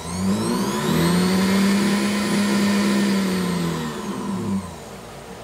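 Small sewing machine motor with a drill chuck on its shaft, speed-controlled by a repaired YC-482E electronic foot pedal: it spins up with a rising whine, runs at a steady speed for a couple of seconds, then winds down in pitch and stops near the end.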